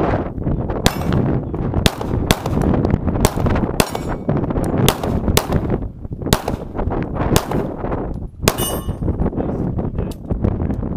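A pistol firing about a dozen shots in a string at irregular half-second to one-second intervals, with steel plate targets clanging as they are hit. One of the shots leaves a longer metallic ring, from a steel plate hit, late in the string.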